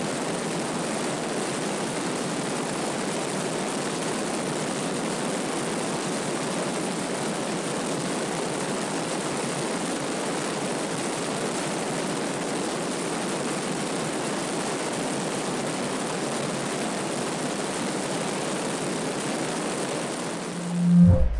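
Piper PA-32 single-engine propeller plane in steady climbing flight, its engine and propeller drone mixed with rushing wind on a camera mounted outside under the wing. A brief loud low thud comes right at the end.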